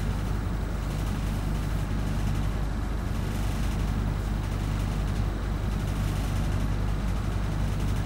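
City bus engine idling steadily with a low hum, heard from inside the passenger cabin while the bus stands in traffic.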